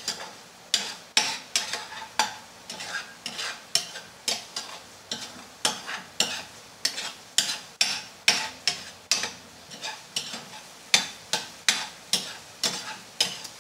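Metal spatula stirring and scraping a frying pan of sardines, tomato and egg, knocking against the pan about two to three times a second, with the food sizzling underneath.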